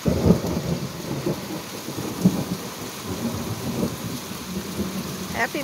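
Thunder rumbling, starting suddenly and rolling on for about five seconds with uneven swells, over the steady hiss of falling rain.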